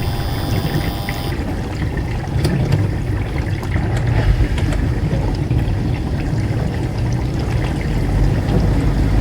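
A household appliance running: a steady hum that cuts off about a second in, then a low churning rumble with faint ticks and a watery, sloshing quality.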